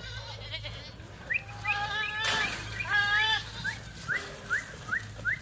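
Goats bleating: two long, wavering bleats about two and three seconds in. A run of short, high, rising chirps repeats about twice a second through the second half.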